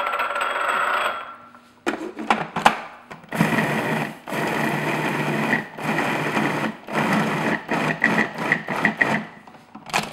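Food processor motor running in several bursts of one to a few seconds with short breaks, beating cream cheese and sugar until creamy and smooth.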